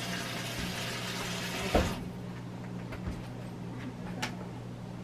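Countertop convection air fryer oven running while it preheats: a steady hum with fan hiss. A sharp knock comes near the two-second mark, and the hiss drops away right after it; a small click follows later.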